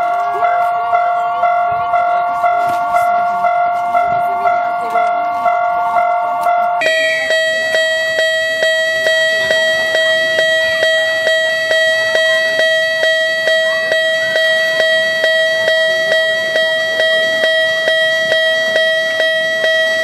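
Miniature Japanese railroad crossing signal sounding its repeating "kan-kan" warning bell, about two strikes a second. About seven seconds in, it switches to a different crossing's bell with a different pitch and a slightly faster beat.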